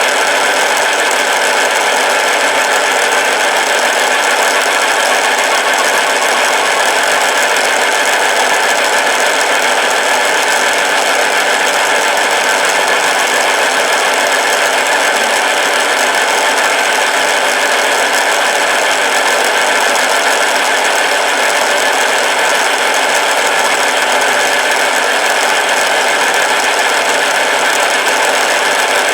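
BV20 mini bench lathe running steadily under power, its motor and gear train giving a constant rattling hum with several steady tones.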